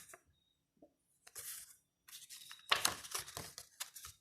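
Paper and plastic rustling and crinkling in irregular bursts, with a few small clicks, as a CD single's case and lyrics booklet are handled. It starts about a second in and is busiest in the second half.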